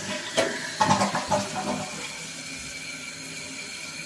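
Kohler Cimarron 1.6-gallon-per-flush toilet flushing: a loud rush of water with a few knocks for about two seconds, settling into a steady hiss as the tank begins to refill.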